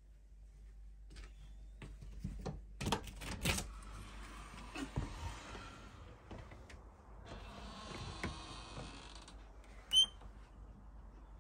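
Handling and movement noise while walking through doorways: a few sharp knocks about two to three seconds in, two stretches of rustling hiss, and a short high squeak about ten seconds in, the loudest sound here.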